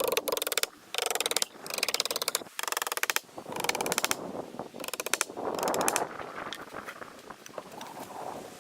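Ratchet wrench clicking in repeated short strokes: runs of rapid clicks, each under a second long, with a brief pause partway through. It stops about six seconds in.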